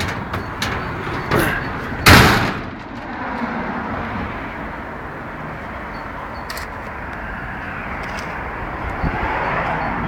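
Steady outdoor background noise, with a few light clicks near the start and one loud thump about two seconds in.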